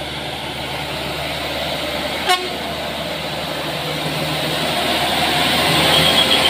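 Medium-size bus engine pulling up a steep grade toward the listener, growing steadily louder as it approaches, with a single short horn toot about two seconds in.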